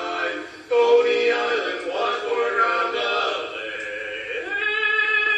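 Barbershop quartet of male voices singing unaccompanied in four-part close harmony. They move through several chord changes, then hold one sustained chord near the end.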